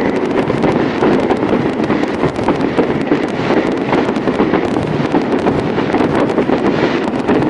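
Fireworks display in a dense barrage: many overlapping bangs and crackles blending into a steady, unbroken rumble.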